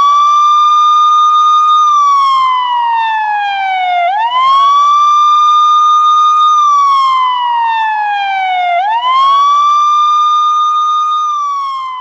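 Delhi Police siren sounding a slow wail: the pitch sweeps up quickly, holds high for about two seconds, then slides slowly down before rising again, about every four and a half seconds.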